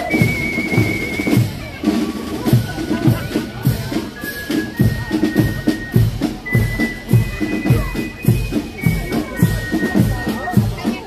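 Parade marching band's drums playing a steady march beat of about two strokes a second, with bass and snare drum and a few high held notes above.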